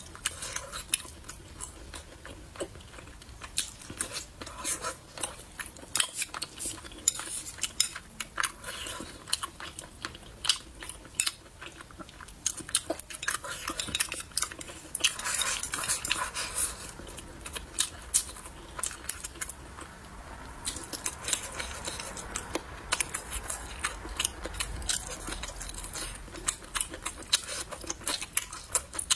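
Close-miked eating: wet chewing and crunching of braised pork belly and green chili peppers, with chopsticks clicking and scraping against the bowl in many quick, sharp clicks.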